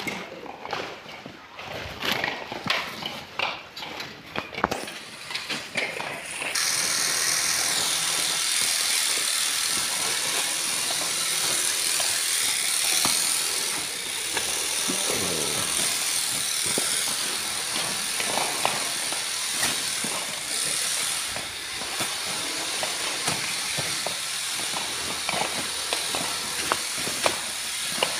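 Husked coconuts knocking and a plastic sack rustling as they are handled by hand, with irregular clicks and rustles; about six seconds in this gives way to a steady, loud hiss of unclear source.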